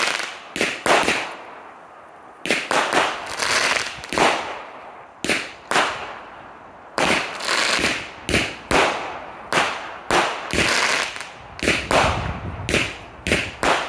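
500-shot firework cake firing in quick succession: a run of sharp bangs, each dying away quickly, coming irregularly at up to about two a second with a couple of short lulls.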